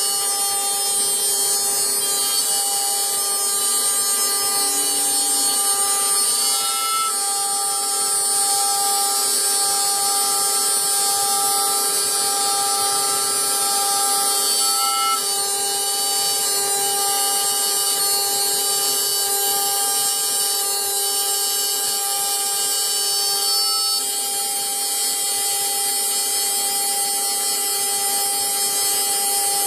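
6040 CNC router's spindle running at 11,000 rpm, a quarter-inch two-flute solid carbide spiral bit milling aluminum plate dry, with no coolant, in a light 0.25 mm cut at a very slow feed. A steady whine with short higher tones coming and going every few seconds.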